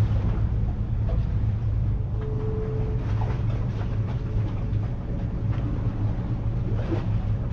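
Steady low engine-like drone, with a faint brief tone about two seconds in.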